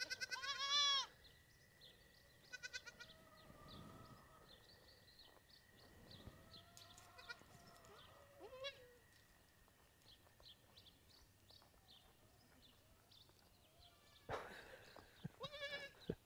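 Goats bleating on and off: a wavering call right at the start, short calls about 3 and 8 seconds in, and a run of calls near the end.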